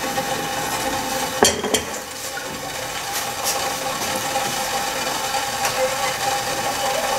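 Steady hiss and hum of an enamel kettle heating on a lit gas burner, with two sharp clinks of crockery about a second and a half in.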